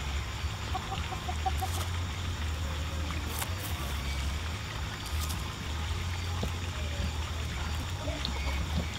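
Chickens clucking, with a quick run of about six short notes about a second in. A few sharp clicks come through, over a steady low rumble.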